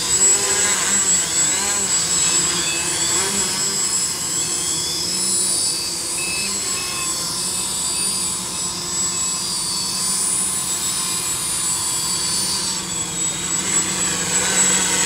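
XAircraft X650 V4 quadcopter's electric motors and propellers humming steadily as it hovers low, the pitch wavering a little, with a thin steady high whine above it.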